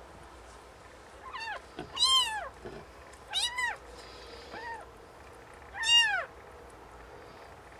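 Newborn kitten mewing: about five short, high-pitched cries, each rising then falling in pitch, the loudest near the end.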